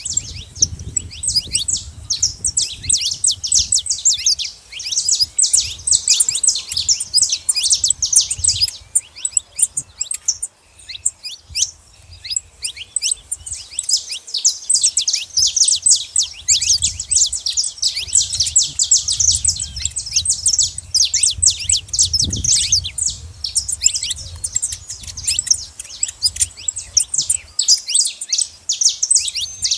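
Saffron finches chirping busily at a feeding spot: a dense stream of short, high, downward-sweeping chirps, thinning out briefly in the middle, over a low rumble.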